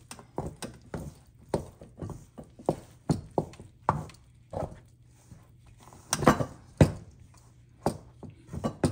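A spoon knocking and scraping against a stainless steel mixing bowl as flour and water are stirred into a dough. The knocks are irregular, about two a second, and the loudest come a little past the middle.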